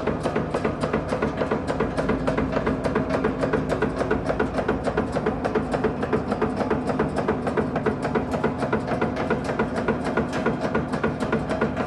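Nail-making machine running at a steady speed, its strokes knocking in an even, rapid rhythm of about three to four a second.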